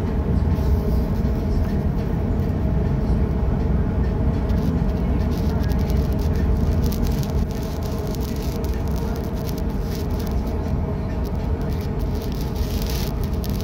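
Steady low rumble of ship engines and machinery, with a constant hum over it, easing slightly about halfway through.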